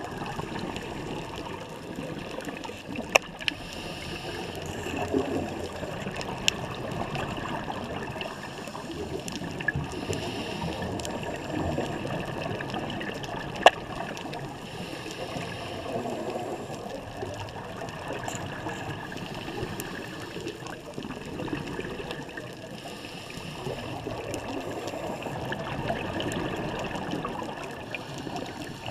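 Underwater sound of scuba divers' exhaled bubbles gurgling, swelling and fading every few seconds, with a few single sharp clicks.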